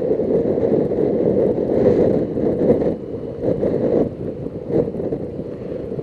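Wind rushing and buffeting over a helmet-mounted microphone on a moving motorcycle, a dense low rush with the motorcycle's running noise mixed in. It drops in level about three seconds in.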